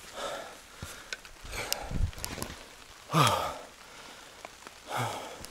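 A man breathing hard while walking quickly: four heavy exhalations about a second and a half apart, some with a short sighing voice at the end.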